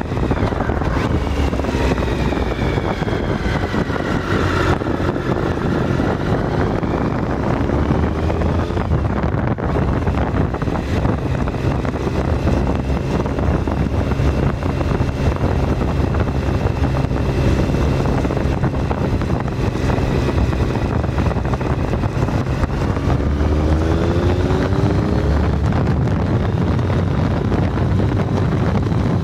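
Triumph Tiger 1050's three-cylinder engine running at motorway speed, heard from a handlebar-mounted camera under heavy wind noise and tyre roar. A whine falls in pitch in the first few seconds and another rises near the end.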